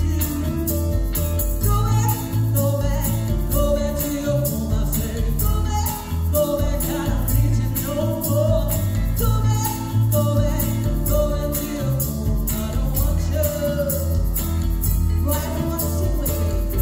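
A woman singing into a microphone over a recorded backing track with a steady beat, bass and tambourine-like percussion, played through PA speakers.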